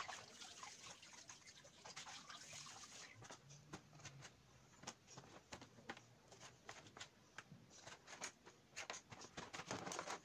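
Faint, irregular clicks and taps of a kitchen knife cutting pieces of ray fish against a plastic cutting board.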